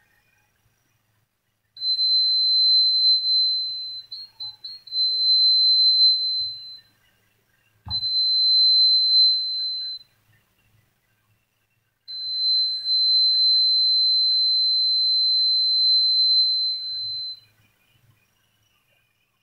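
Small electronic buzzer in a light-dependent-resistor (LDR) circuit sounding a steady high beep three times, the first and last for about five seconds each and the middle one about two, switched on and off by the light reaching the LDR. A short knock about eight seconds in.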